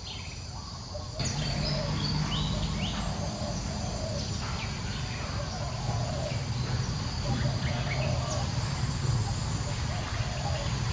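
Outdoor ambience of insects and birds calling, with short repeated chirps over a steady low hum; it gets louder about a second in.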